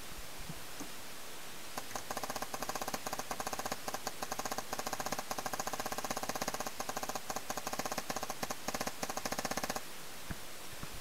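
Paintball marker firing a rapid, even string of shots for about eight seconds, starting about two seconds in and stopping shortly before the end, over a steady whine.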